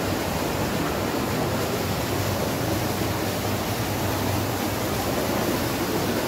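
Steady rush of a stream cascading over rocks in a narrow gorge, an even noise without a break.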